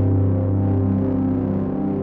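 Soundtrack music with steady, held chords.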